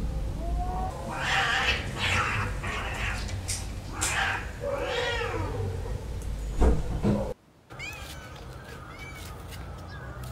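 Cats fighting: drawn-out wavering yowls broken by harsh hissing spits, which cut off suddenly about seven seconds in. Then a cat gives short, rising chirp-like meows.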